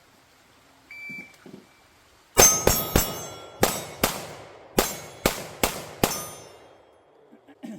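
Shot-timer beep about a second in, then a rapid string of pistol shots, about nine in quick groups, with the ring of steel targets being hit.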